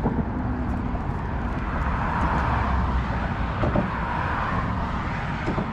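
A road vehicle passing on the causeway beside the fishing catwalk, its tyre and road noise swelling about a second and a half in and fading again, over a steady low rumble.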